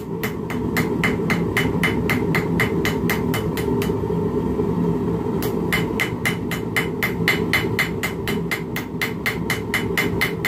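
Hand hammer striking a small piece of steel on the anvil of a bench vise: rapid, even blows, about four or five a second, with a short pause about four seconds in before they pick up again. A steady low rumble runs underneath.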